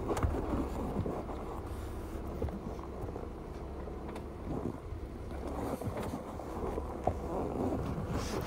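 A vehicle driving slowly on a rough dirt trail, heard from inside: a steady low rumble with scattered light knocks and rattles.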